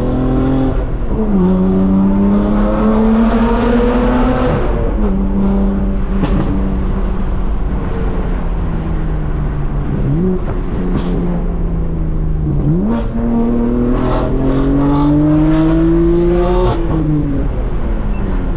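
BMW M4's twin-turbo inline-six through a straight-piped exhaust with a small performance muffler, driven hard through the gears: the engine note climbs steadily in each gear and changes abruptly at several gear changes, one with a quick upward rev blip.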